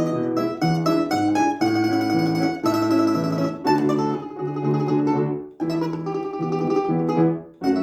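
A plucked string instrument playing a quick melody of short notes over steady low notes, with a brief break about two thirds of the way through.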